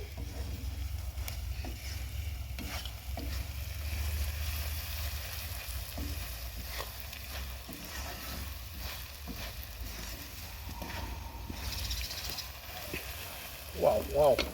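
Boiled grasshoppers frying in hot oil in a pan, sizzling steadily, with a utensil stirring them in scattered clicks and scrapes over a steady low hum.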